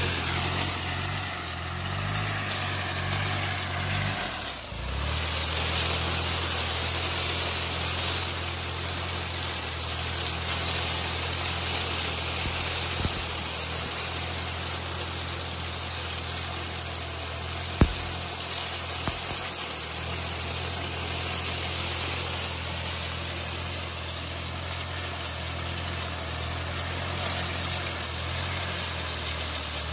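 Kubota B2420 compact tractor's three-cylinder diesel running steadily under load while its tractor-mounted sugarcane leaf mulcher shreds dry cane trash with a steady rushing hiss. A single sharp knock sounds once, about two-thirds of the way through.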